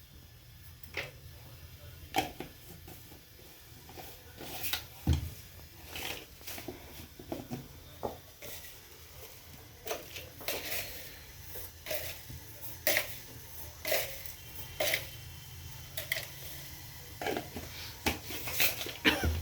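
Kitchenware being handled: irregular clinks, taps and knocks of dishes, cups and utensils, one or two every second or so, over a low steady hum.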